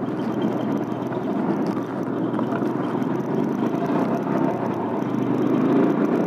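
Motorcycle engine running steadily while riding along, heard as an even rough drone with road noise.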